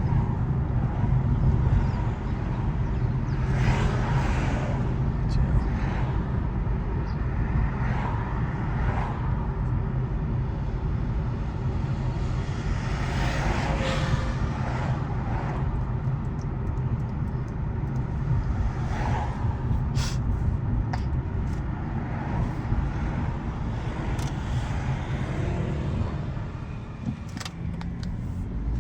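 Cabin noise of a 2014 Fiat 500L being driven: a steady low engine and road rumble, with a few brief swells of tyre and wind hiss.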